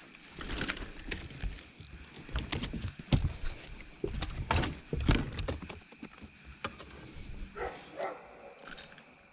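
Irregular knocks, thumps and rustling from a handheld camera being moved around on a boat deck. The loudest thumps come about three and five seconds in, and it goes quieter near the end with a couple of short higher-pitched sounds.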